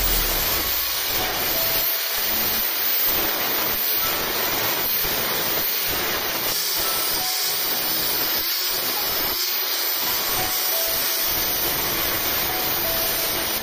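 Angle grinder with an abrasive disc grinding the steel edge of a motorbike sprocket, a steady hiss of grinding as the edge is sharpened.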